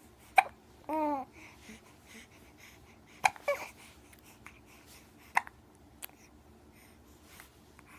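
A baby hiccupping: sharp, short hiccups every two to three seconds, with a short coo about a second in and a brief voiced sound just after the second hiccup.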